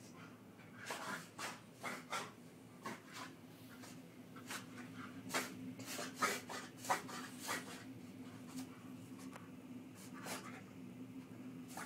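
Dog in a reverse-sneeze fit: a run of short, sharp, noisy inhalations through the nose at irregular spacing, coming fastest, two or three a second, in the middle of the stretch.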